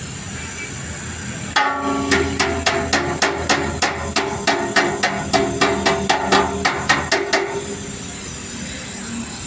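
Small hammer tapping on the steel diesel tank of a TATA 709 truck at the freshly gas-welded leak repair, a quick steady run of about three to four blows a second that starts about a second and a half in and lasts some six seconds, each blow making the sheet-metal tank ring.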